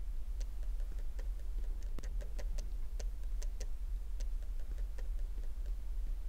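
A quick, uneven run of light clicks, several a second, over a low steady hum.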